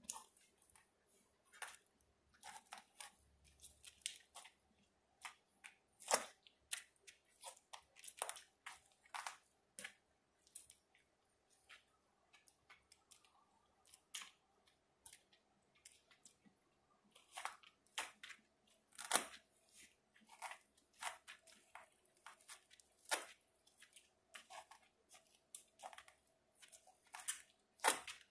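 Boots treading on crushed fruit and snacks on a hard floor: irregular wet squelches and crunches, a few each second. A faint steady hum lies underneath.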